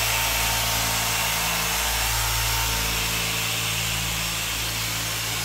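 Electric car polisher running steadily: a constant machine hum with a hiss over it, easing slightly about halfway through.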